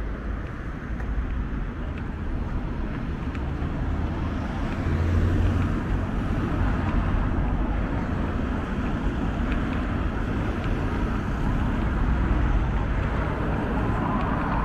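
Road traffic on a town street: cars driving past, getting louder about four seconds in.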